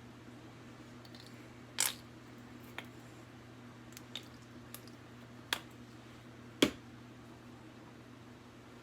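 Scattered kitchen handling sounds during meal prep: about six light taps and knocks, the loudest a little under two seconds in and about two-thirds of the way through, over a steady low hum.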